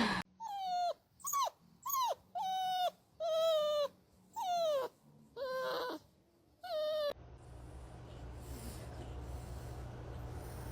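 Dog whining: a series of about eight short high cries, each sliding down in pitch at its end, with silent gaps between. The cries stop about seven seconds in, leaving a faint steady hum.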